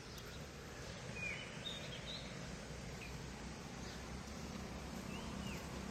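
A few short bird chirps, a cluster of them about a second in and two more near the end, over a faint steady outdoor rushing noise.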